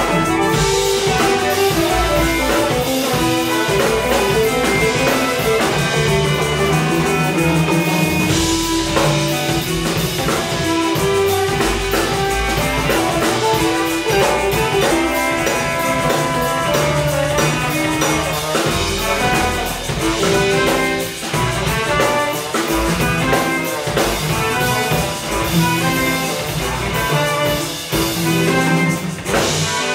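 A live band playing contemporary Yoruba funk-jazz, with guitar and drum kit carrying the groove under basses, hand drums, violins and saxophone.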